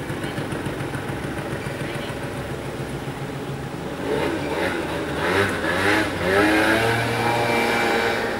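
Small motor scooter engine idling with a steady pulse, then about four seconds in it accelerates away, its pitch rising and levelling off before it fades near the end.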